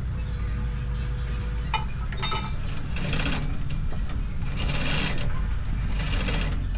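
Heavy engine running steadily with a low rumble, with four short bursts of hiss about a second apart in the second half.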